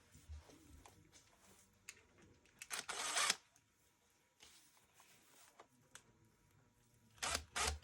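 Quiet handling sounds of work on a mount: a few light clicks and taps, with a short rasping hiss about three seconds in and another brief one near the end.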